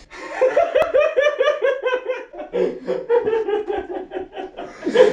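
Men laughing hard in a quick run of ha-ha pulses, about five or six a second, slowly falling in pitch; a second, lower laugh joins about halfway.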